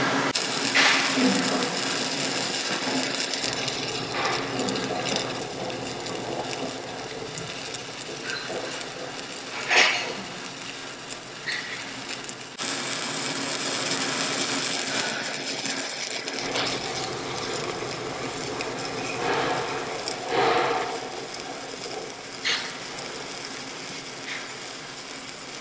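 Stick-welding arc from a 3/32-inch 7018 electrode burning along a steel plate in the horizontal position: a steady crackle and sizzle with a few louder pops. The arc is held tight on the final cap pass to keep the top edge from undercutting.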